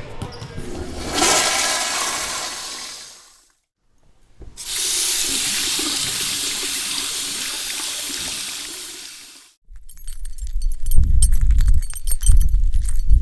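Rushing water in two separate spells: the first swells and fades over about three seconds, and after a second of silence a second, steadier spell runs about five seconds before fading out. Near the end comes a run of clattering clicks and low thumps.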